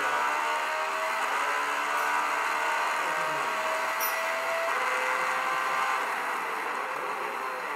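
Porsche RS Spyder LMP2 race car's V8 engine pulling hard under acceleration, its pitch climbing steadily, dropping once for an upshift about four and a half seconds in, then climbing again. It sounds thin, with almost no deep bass.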